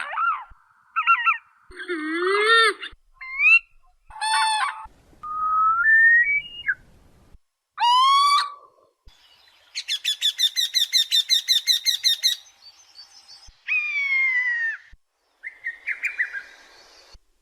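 A string of different wild bird calls, one after another: short whistles and rising and falling notes, with a fast, even trill of rapidly repeated notes lasting about two and a half seconds in the middle.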